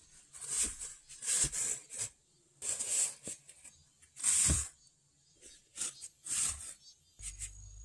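Loose dry earth being scooped with a plastic bowl and poured out onto a ceiling as earth insulation: a string of short hissing scrapes and pours, about one a second, with a dull thump about halfway through.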